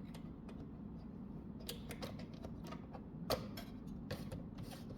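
Scattered, irregular small clicks from the mostly plastic Optima Bambino index typewriter's mechanism as it is worked by hand. The loudest click comes a little after three seconds in.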